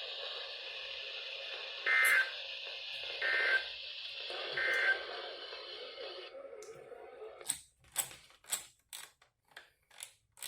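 Weather radio hiss carrying three short two-tone digital data bursts about a second and a half apart, the end-of-message tones that close an Emergency Alert System broadcast. The hiss cuts off about six seconds in, and a run of sharp clicks follows at about two a second.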